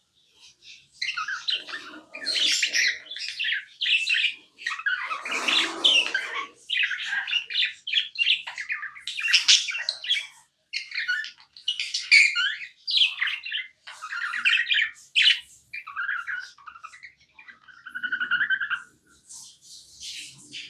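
Budgerigars chirping and squawking in quick, irregular bursts of short, high calls, with a louder, harsher call about five seconds in.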